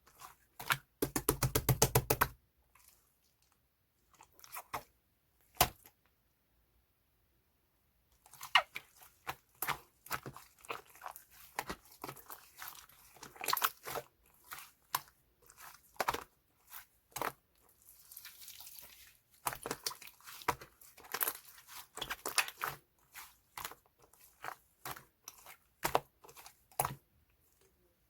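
Hands squeezing and poking mixed slime, giving irregular sticky pops and clicks, with a fast rattle of pops about a second in. After a short pause the squishing and popping goes on densely, with a longer hissing squish partway through.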